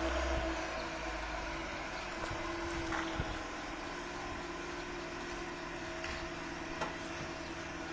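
A steady mechanical hum from an unseen motor, with a few faint clicks.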